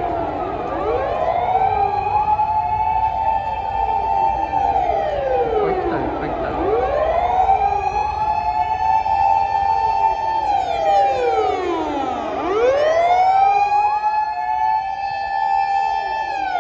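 Several fire engines' sirens wailing at once as the trucks go by in a column, their rising, holding and falling wails overlapping out of step. Truck engines rumble underneath.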